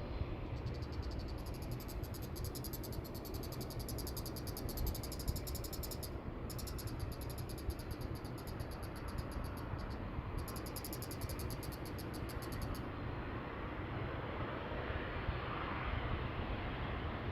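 ANA Boeing 787-10 jet airliner on landing approach, heard as a steady low rumble. Over it, insects trill in fast even pulses that pause briefly twice and stop about three-quarters of the way through.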